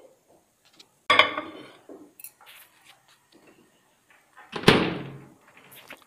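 A clink of ceramic dishware with a short ring about a second in, a few light clicks, then a heavier thump of a microwave oven door being shut near the end, the loudest sound.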